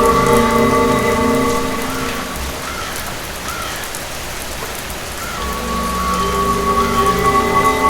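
Rain falling steadily with scattered drop patter, layered with a low rumble and a drone of held tones that fade out about two seconds in and build back up after about five seconds.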